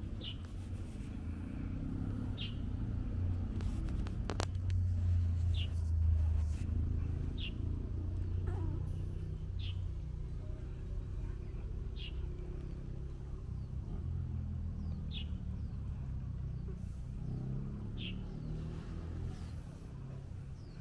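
A steady low rumble, with short high chirps repeating every two to three seconds and a single click about four seconds in.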